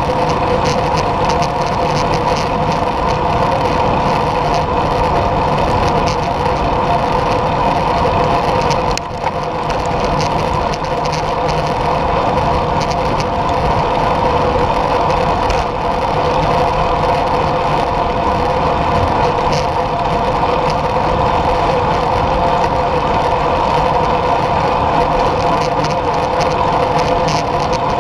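Steady wind and road noise on a bike-mounted action camera riding at speed over asphalt: a constant rushing hum, with a brief dip about nine seconds in.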